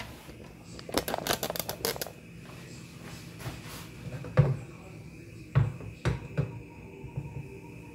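Kitchen clatter of things being handled: a quick rattle of clicks about a second in, then a few separate knocks like cupboard doors and dishes being moved.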